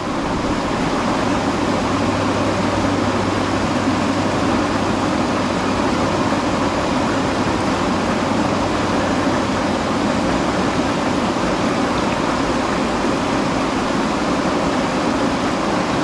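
Steady rush of water, a rocky mountain stream pouring into a pool, an even noise that holds unchanged throughout.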